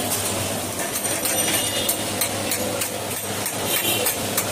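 Busy street-food stall ambience: a steady hum of traffic and machinery with many scattered small clicks and clinks.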